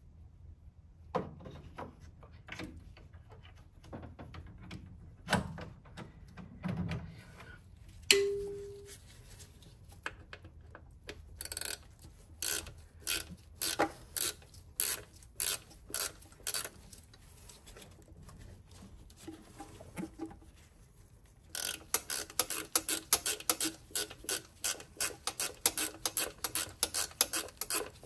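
Hand ratchet clicking as small Torx screws are undone: a slower run of clicks about twelve seconds in, then a faster run of about four clicks a second near the end. About eight seconds in there is a single sharp metallic clink that rings briefly, the loudest sound here.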